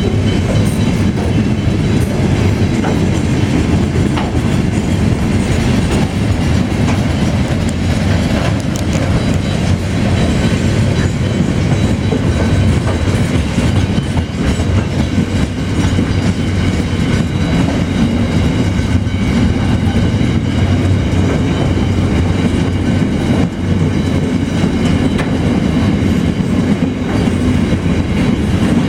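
Freight train rolling past at steady speed: a continuous rumble of wagon wheels on the rails, with clicking over the rail joints.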